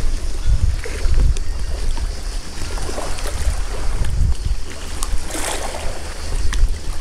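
Wind buffeting the camera microphone with an uneven low rumble, over faint hiss from lapping sea water.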